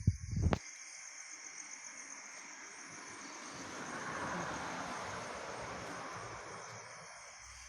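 Aeroplane passing overhead: a rushing noise that swells to a peak around four seconds in and slowly fades. A louder low sound cuts off abruptly about half a second in.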